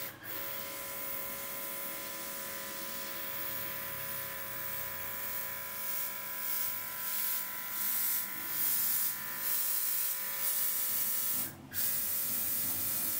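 Portable airbrush's built-in mini compressor running with a steady whine while air hisses from the nozzle. A series of short, louder spray puffs comes as dots are sprayed one after another. Near the end the motor cuts out for a moment and starts again.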